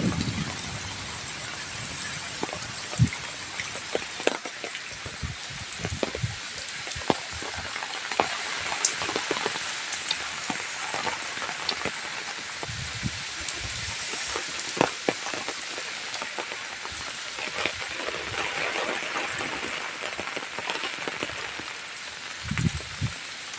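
Heavy cyclone rain falling steadily: an even hiss with many sharp splats of individual drops striking surfaces, and a few dull low knocks.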